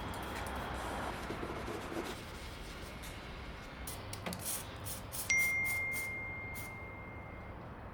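A few light clicks and knocks, then about five seconds in a single sharp ding that rings on one steady high note and fades over about two seconds.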